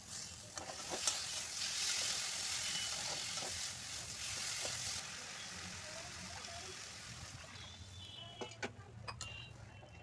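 Water poured into a hot kadhai of fried onion masala sizzles loudly, then dies down to a quieter bubbling about halfway through as a steel ladle stirs the gravy. A few short clinks of the ladle against the pan come near the end.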